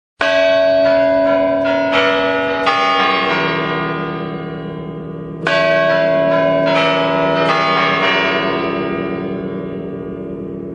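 Church bells ringing in two runs of about half a dozen quick strokes, the second starting about halfway; after each run the bells ring on and slowly fade.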